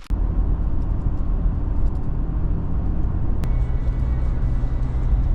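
A steady low rumble. About three and a half seconds in there is a click, and a steady low hum joins the rumble after it.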